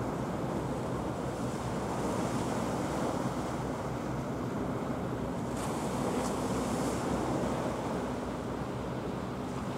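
Steady wind buffeting the microphone over the continuous wash of choppy sea.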